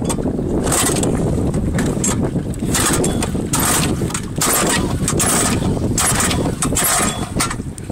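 Recoil starter of a lawnmower engine rigged as a boat outboard being yanked again and again, each pull a short rattling burst as the engine cranks without yet catching, over steady wind rumble on the microphone.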